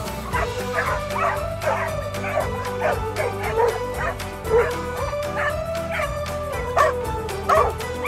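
A pack of dogs barking and yipping excitedly, several at once, with drawn-out whining in between.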